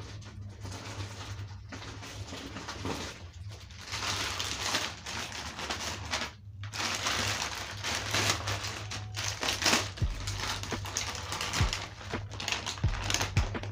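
Kitchen knives being slid into the slots of a wooden knife block, steel blades scraping and clicking against the wood, over a steady low hum.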